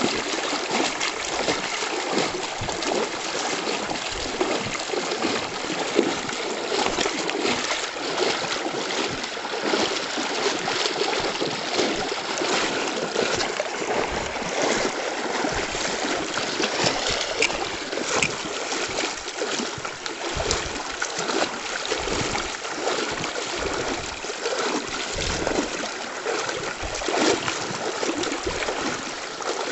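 River water rushing over stones, with irregular splashing throughout.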